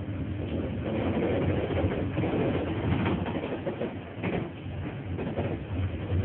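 Konstal tram running along street track, heard from inside: steady running noise with a low hum and irregular clicks and rattles of the wheels over the rails.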